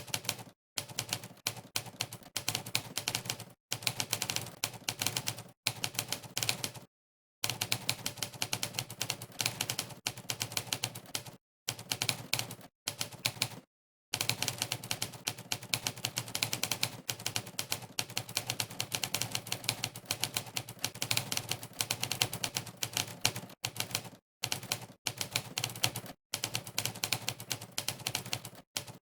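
Typewriter key-strike sound effects from the Monkeytype typing site, one clack per keypress, in fast runs broken by short gaps of dead silence where the typing pauses.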